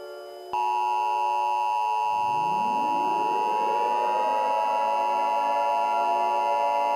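Emergency Alert System attention signal: a loud, steady, shrill electronic tone chord near 1 kHz that comes on suddenly about half a second in. From about two seconds in, a low rising whine sweeps upward underneath it and levels off.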